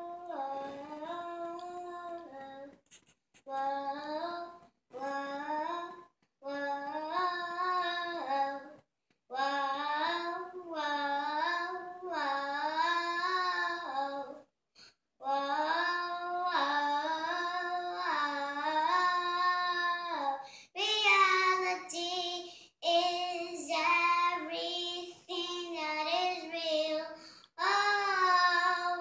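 A young girl singing a song solo and unaccompanied, in phrases broken by short pauses for breath.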